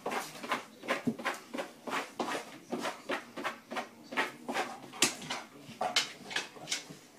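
A dog's claws scraping and pawing at a mat, in a quick, uneven run of scratches about three a second.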